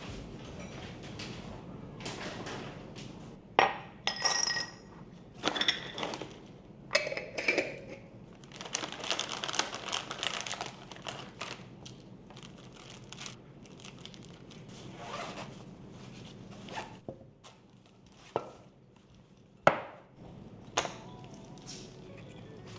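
Hard objects being handled and set down: a run of knocks, thunks and light clinks, the sharpest knock near the end.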